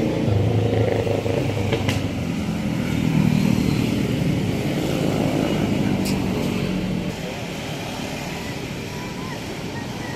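Road traffic passing: the engines of passing motorcycles and cars. The engine noise is loudest for the first seven seconds or so, then fades to a quieter steady background.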